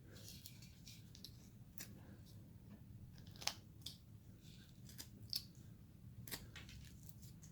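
Hand carving tool slicing small cuts in basswood: faint, irregular snicks and scrapes, about a dozen, the sharpest about three and a half seconds in.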